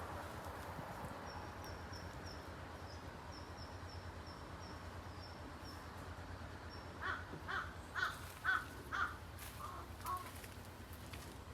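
A bird calling in a series of about seven loud calls, roughly two a second, starting about seven seconds in. Earlier, a small bird's faint high chirps repeat quickly, over a steady low hum.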